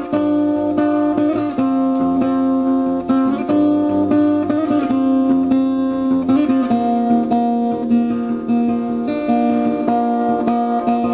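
Background music on acoustic guitar, strummed and plucked at a steady level.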